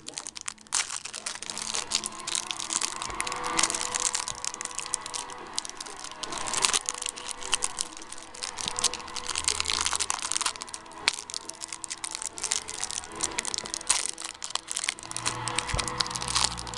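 Trading card packaging being torn open and crumpled: continuous crinkling and crackling of plastic wrapper, with sharp clicks as cards are handled.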